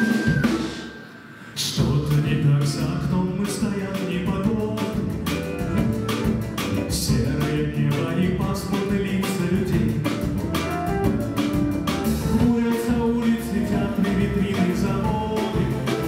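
Live band playing with drum kit and guitar: after a short break about a second in, the full band comes in with a steady beat.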